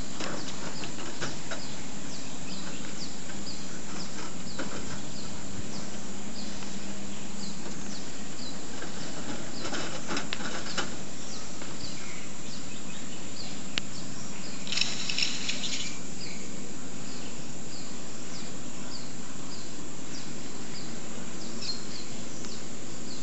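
Steady series of short, high chirps, about one and a half a second, with a brief burst of busier birdsong about two thirds of the way through.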